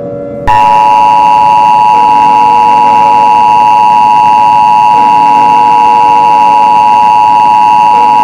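Emergency Alert System attention signal: a loud, steady two-tone alarm that starts about half a second in and holds without a break. It marks the start of a new alert message.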